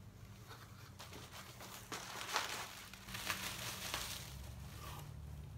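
Plastic packaging crinkling and rustling in the hands in a run of crackles, loudest a couple of seconds in, over a faint steady low hum.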